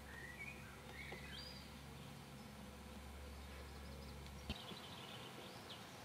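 Faint outdoor ambience with small birds calling: a few short rising and falling chirps in the first second or so, then a quick twittering run of notes near the end. A low steady rumble underneath cuts off with a sharp click about four and a half seconds in.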